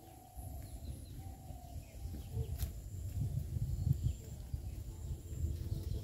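Outdoor rural ambience: an uneven low rumble on the microphone, louder from about two seconds in, with faint bird chirps and a thin steady high whine behind it.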